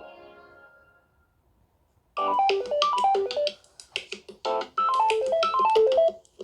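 Samsung One UI 4.1 ringtone. The tail of the previous tone dies away in the first second, and after a short silence a new ringtone starts about two seconds in: a melody of quick runs of notes stepping downward, played twice with a brief pause between.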